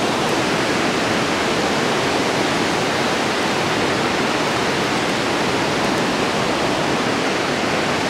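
Steady, even rushing of water pouring through a dam spillway.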